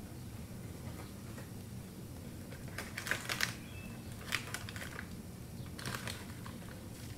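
Three short clusters of light, sharp clicking, about a second and a half apart, over a low steady background hum.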